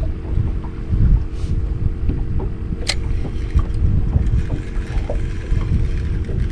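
Wind buffeting the microphone and water slapping against the hull of a small fiberglass boat, under a steady low hum, with one sharp click about three seconds in.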